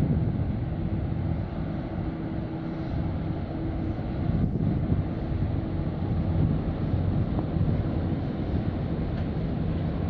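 Steady low drone of ship engines from the passing container ship and tugboat, several low tones over a rumble, with wind buffeting the microphone.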